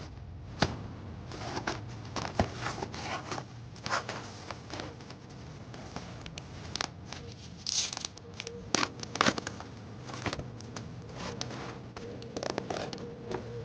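Packaging being handled and opened by hand: scattered sharp clicks and taps with crinkling, and a short scraping rustle about eight seconds in, over a faint steady hum.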